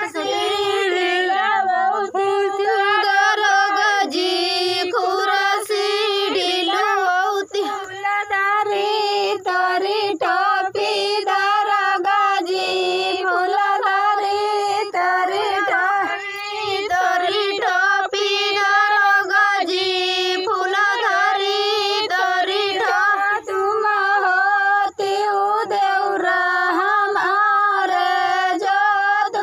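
Women singing a chohkra, a rural folk song of the kind sung at weddings, in high voices with a continuous melody broken only by short breaths between phrases.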